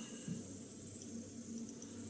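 Quiet room background: a low steady hum with a few faint ticks.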